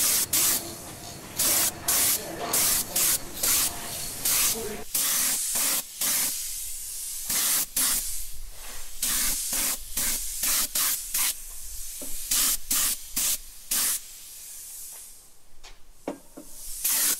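A quick series of short hissing bursts, about two a second and not quite even, with a longer hiss about five seconds in and a quieter spell near the end.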